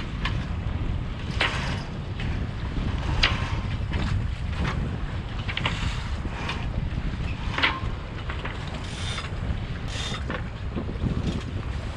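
Wind buffeting the microphone on a sailing yacht's deck, a steady low rumble, with irregular short clicks and rattles as the mainsail is handled at the mast.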